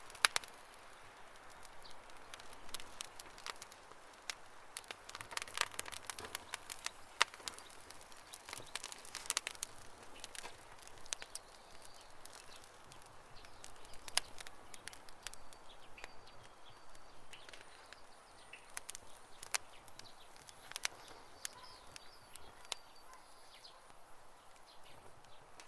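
Campfire crackling: irregular sharp pops and snaps of burning wood over a soft steady hiss.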